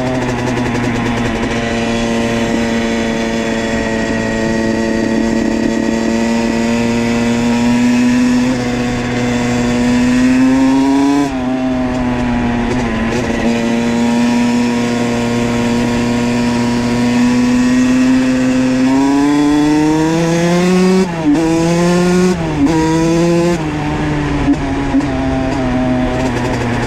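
Honda CR85's 85cc single-cylinder two-stroke engine, breathing through a Pro Circuit R-304 shorty silencer, running at a steady pitch. Over its last several seconds the throttle is opened and closed a few times in quick rises and falls.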